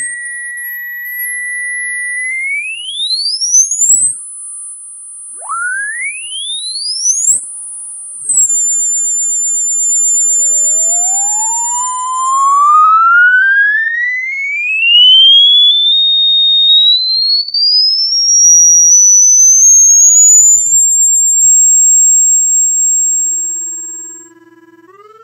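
Electronic pure tones played as a rodent-repellent sound, gliding in pitch: a tone holds for a couple of seconds, then quick rising sweeps climb to a very high whistle, with a few high steady whistles. From about ten seconds in, a long slow rising whine climbs from low to very high and holds there, fading out just before the end.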